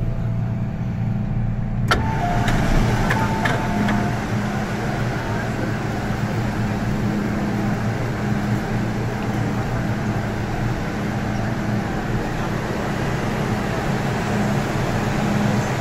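MTR Kwun Tong line M-train standing at an underground station platform with its doors open, a steady low hum under the noise of passengers moving on and off. About two seconds in the sound opens up suddenly with a few clicks and a brief tone.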